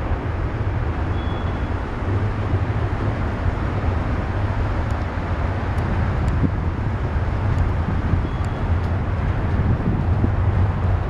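Long freight train of double-stack container cars rolling across a rail bridge: a steady rumble with a strong low hum and a few faint high ticks.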